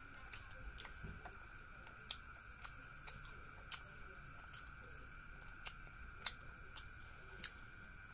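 Eating by hand from a steel plate: a dozen or so short sharp clicks and taps, irregularly spaced, as fingers pick fried fish and rice off the plate, the loudest about six seconds in. A faint steady high-pitched hum runs underneath.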